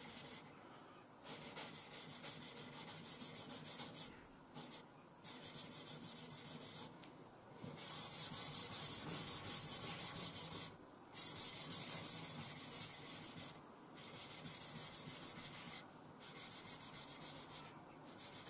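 Puukko blade stroked back and forth on a worn 600-grit abrasive grinder belt clamped to a board: runs of quick, hissy scraping strokes, broken by short pauses several times.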